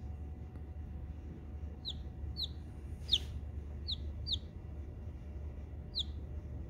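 Newly hatched chicken chick peeping: six short, high peeps spaced irregularly, each sliding down in pitch.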